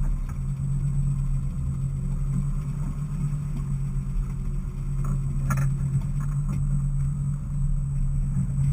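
Boat engine running steadily, a low even drone, with a few brief clicks about five to six seconds in.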